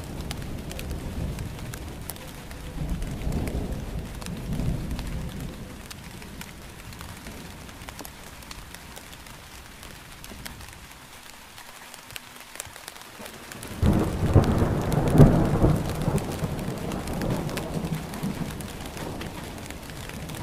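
Steady rain falling, with rolling thunder. A low rumble swells a few seconds in and dies to a lull, then a louder thunderclap breaks about fourteen seconds in and rolls away over several seconds.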